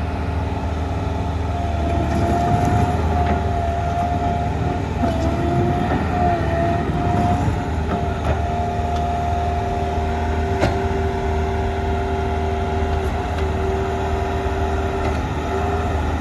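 Bobcat T66 tracked skid steer loader's turbo diesel engine running, with a steady high whine over the low rumble and a few short clanks.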